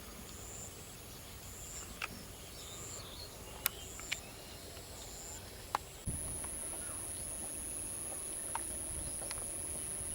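Insects shrilling outdoors: a high chirp repeating about once a second, then a continuous high-pitched buzz that starts suddenly about six seconds in. A few sharp clicks or taps are scattered through.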